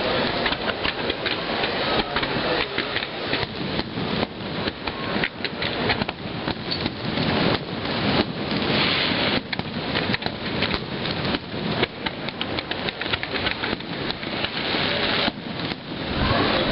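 Aerial firework shells, peonies among them, bursting in quick succession as a dense, unbroken run of bangs and crackles, with a deeper boom near the end.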